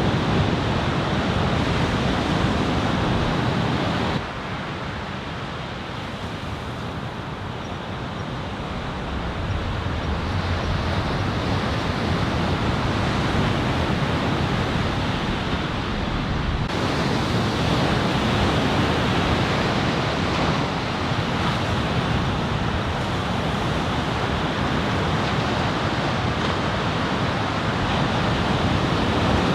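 Ocean surf breaking and washing ashore, with wind buffeting the microphone. The sound drops suddenly about four seconds in and builds back over the next several seconds.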